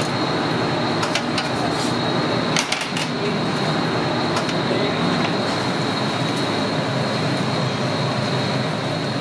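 Steady background noise of a commercial kitchen: a constant rush with a thin high whine, with a few sharp metal clinks in the first three seconds.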